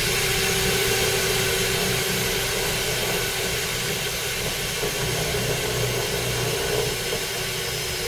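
Cordless drill running continuously at a steady speed as it bores a screw hole into a metal door frame: a steady high whine over grinding noise, with no let-up.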